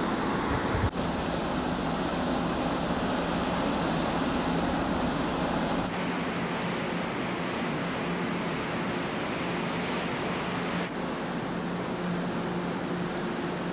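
Steady rush of wind and water over a low, even hum from the ferry Sunflower Satsuma under way, heard on its open deck, with a short bump about a second in.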